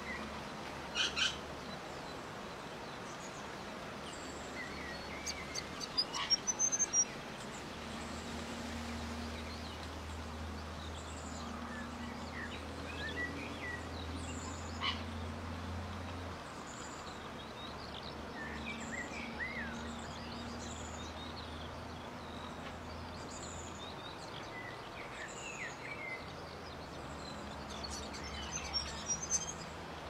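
Small birds chirping: scattered short high calls and chirps with a few sharp clicks, the loudest about a second in and around six seconds, over a steady low hum.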